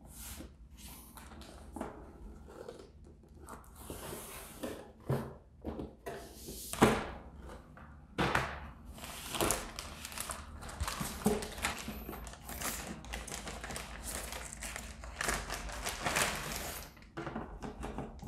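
Handling of motherboard packaging: an anti-static plastic bag crinkling and rustling as the board is lifted from its cardboard box and slid out of the bag, with scattered knocks and thumps of the board and box, the sharpest about seven seconds in.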